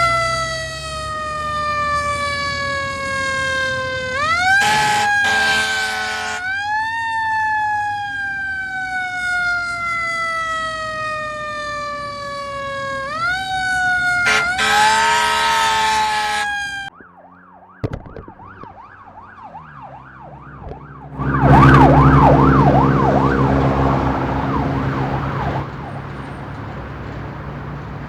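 Fire truck siren wailing, each cycle rising quickly and then falling slowly over about four seconds, with two long air horn blasts, about 4 and 14 seconds in. About 17 seconds in it gives way to a police car siren with a fast warbling yelp, which comes up loud as the car drives past and then fades.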